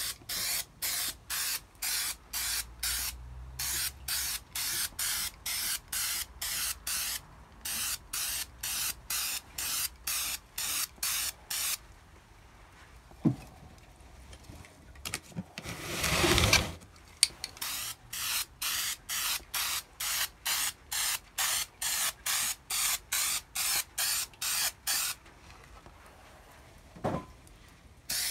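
Aerosol spray can of primer hissing in rapid short puffs, about three a second, as a light coat is dusted onto a valve cover. Halfway through there is one longer, louder hiss, and near the end the spraying pauses for a couple of seconds.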